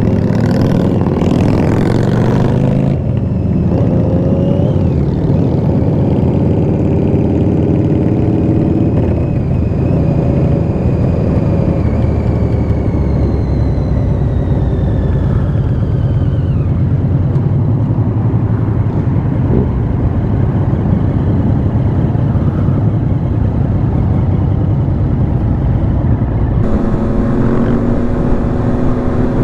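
Triumph Daytona 675's inline three-cylinder engine running on the move, its note rising and falling with the throttle and sinking in one long fall about halfway through, over a steady low rumble of wind and road noise.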